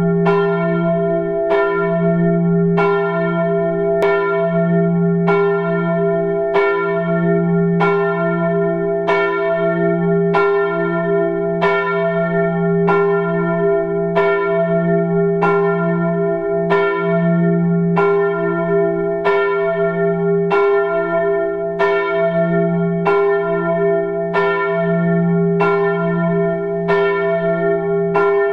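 A single church bell tolling at an even pace, one stroke about every second and a third. Each stroke rings on into the next.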